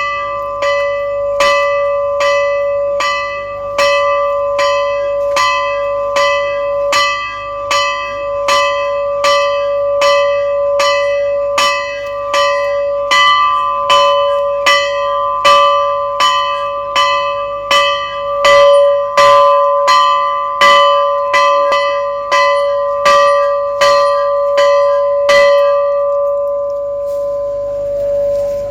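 Metal temple bell rung with fast, even strokes over its sustained ringing tone. The strokes stop about two seconds before the end, and the ringing lingers on.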